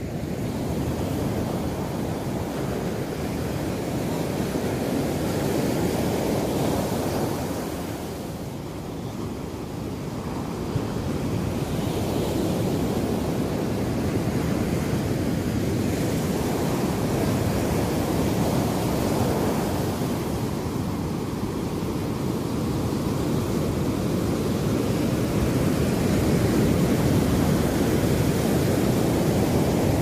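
Low Indian Ocean waves breaking and washing over a sandy shore: a steady rushing that swells and eases as the waves come in, dipping briefly about a third of the way in and again about two-thirds of the way in.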